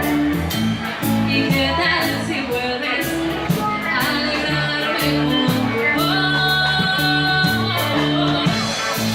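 A band playing live with singing, steady bass notes and drums with a regular beat.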